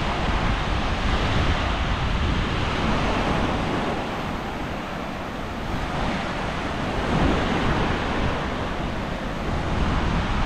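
Sea surf washing onto the beach, swelling and easing, with wind rumbling on the microphone.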